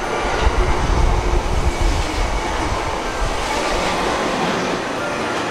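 The JR East E001 series Train Suite Shiki-shima passing a station platform at speed: a steady rush of wheels on rail and moving air, with a heavier low rumble and wheel clatter in the first couple of seconds.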